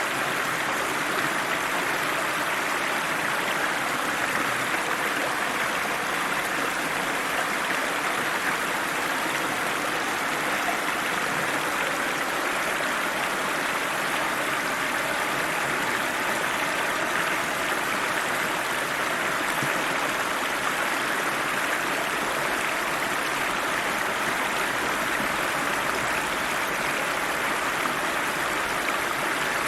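Cold river flowing over rocks: a steady, even rushing of water.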